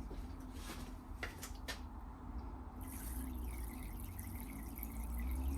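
Liquid being poured into the ports of a Land Rover cylinder head to leak-test its reground valve seats. A few light clicks first, then pouring starts about three seconds in, its pitch rising near the end as the port fills.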